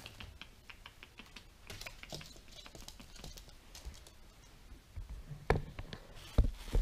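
Light, irregular clicking and tapping, then a few heavier thumps near the end as the camera is picked up and moved.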